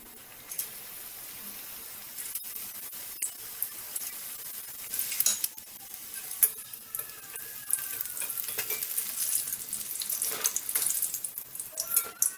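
Batter-coated fish pieces deep-frying in hot oil in a steel kadai: a steady sizzle that grows louder after a couple of seconds, with a metal slotted spatula clinking and scraping against the pan several times as the pieces are turned.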